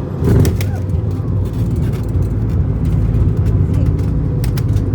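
Airbus A220-300 cabin during landing: a sudden jolt and knock about a quarter second in, then a steady, loud low rumble with scattered rattles, as the airliner rolls out on the runway.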